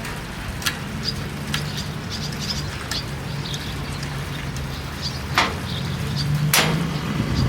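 Small birds chirping over a steady low hum, with four sharp clicks, the two loudest a second apart near the end.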